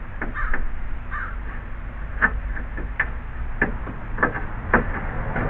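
Irregular sharp knocks and clanks of metal parts being handled and fitted, about eight of them, with crows cawing in the background.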